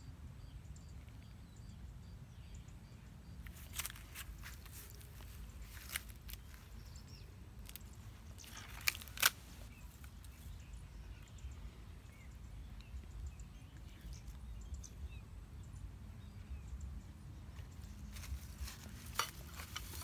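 Hands handling a string-and-bamboo snare bird trap on dry ground: faint rustling with scattered sharp clicks and snaps, a strong pair around the middle and a cluster near the end, over a low steady rumble.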